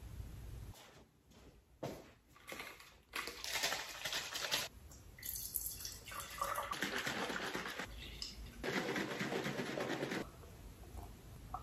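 Milk poured from a plastic bottle into a glass jar, heard as several separate stretches of pouring and splashing, each a second or so long.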